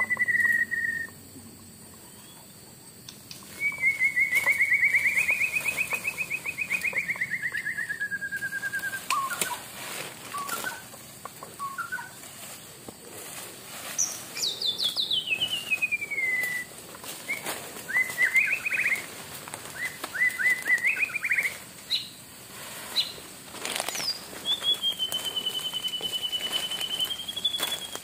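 Hand-held deer caller blown to imitate a muntjac (kijang): a series of buzzy whistle-like calls, a long wavering one about four seconds in, a falling sweep midway, a few short rising notes, and a long steady call near the end. Scattered rustles and clicks come between the calls.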